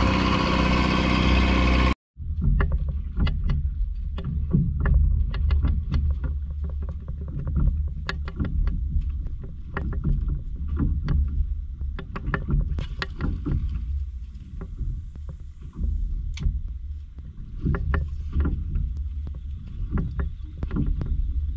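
A loud rush of noise cuts off abruptly about two seconds in. Then comes a small boat on open water: a steady low rumble with irregular knocks and slaps of water against the hull.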